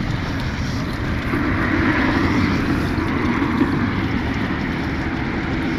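Steady low rumble and hiss of wind buffeting the microphone, with no distinct events.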